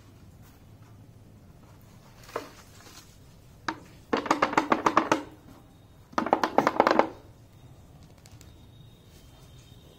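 A white plastic bottle shaken like a rattle to attract puppies: a couple of single knocks, then two rapid rattling bursts of about a second each, the second after a short pause.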